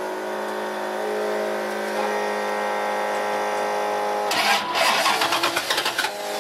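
A 1967 Ford Mustang Shelby GT500 'Eleanor' with the ignition on: a steady electric hum, then about four seconds in the starter cranks the engine for about a second and a half without it firing. The steady hum is typical of an electric fuel pump priming.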